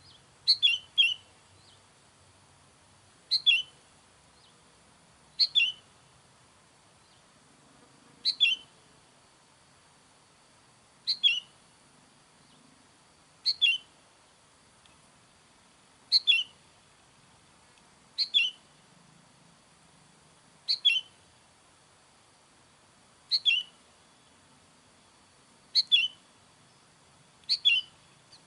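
Sooty-headed bulbul calling: a short, bright two-note phrase dropping in pitch, repeated at an even pace about every two and a half seconds.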